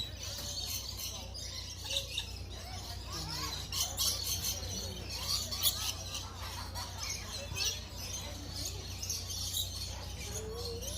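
A group of lovebirds chirping and chattering, many short high chirps overlapping without a break.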